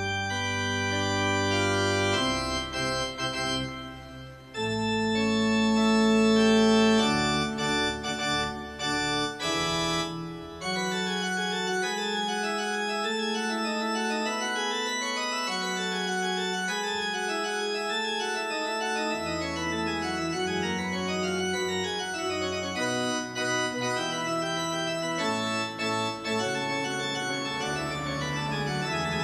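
Organ music: held chords over a stepping bass line, with quick rising and falling runs of notes in the second half.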